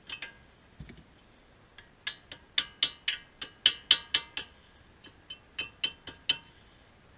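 Brake pads being worked out of a front disc-brake caliper bracket: a run of sharp metallic clicks and clinks of pad backing plates against the bracket and clips, in two irregular clusters of about four a second.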